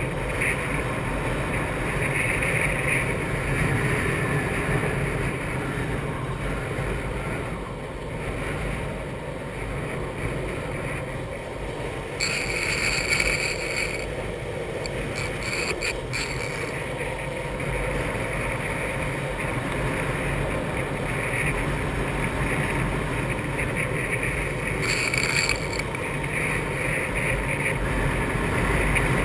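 Longboard's urethane wheels rolling fast over asphalt, with wind rushing over the camera microphone. Twice, about halfway and near the end, a brief higher-pitched hiss rises over the rumble.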